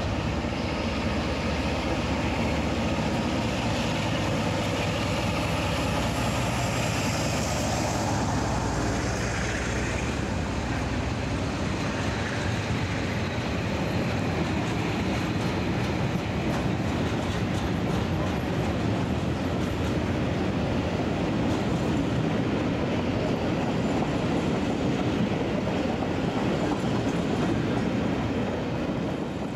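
Class 47 diesel locomotive's engine running as it passes hauling a freight train, giving way to the steady rumble and clatter of a long rake of covered wagons rolling over the rail joints.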